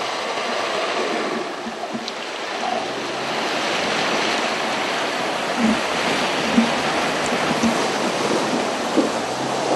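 River water rushing over rocks close by, joined by the splashing of a Hummer H3 driving through the shallow river, growing a little louder about three seconds in as it pushes a bow wave.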